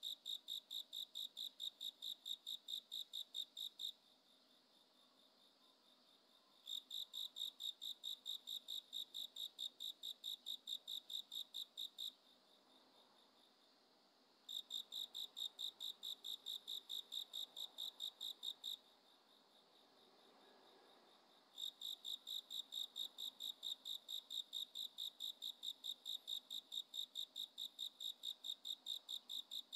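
Insect chirping: rapid, evenly spaced chirps on one steady high pitch, in bouts of several seconds broken by three pauses of two to three seconds.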